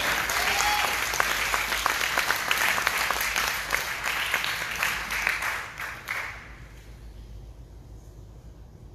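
Congregation applauding, a dense patter of many hands that fades out about six seconds in.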